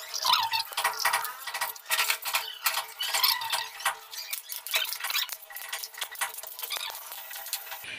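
A metal hand tool scraping and chipping at the marble rim of a floor-drain hole. It makes rapid, irregular scrapes and clicks.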